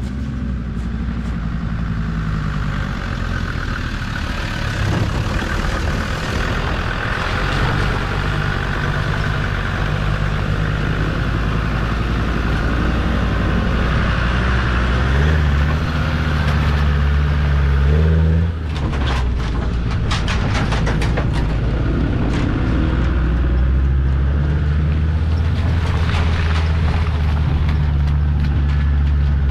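Land Rover Series 1 running a swapped-in Td5 five-cylinder turbodiesel, driving off-road with the engine pulling steadily and growing louder as it comes close. About two-thirds of the way through the engine briefly lets off, a few sharp knocks follow, and it then pulls on steadily.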